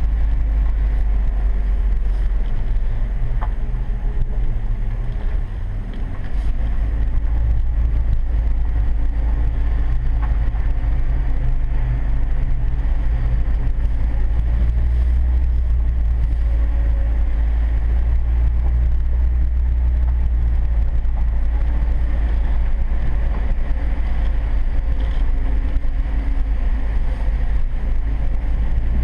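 Ford truck engine idling in first gear and four-wheel low, creeping downhill without throttle, heard from inside the cab as a steady low drone with a brief dip about five seconds in.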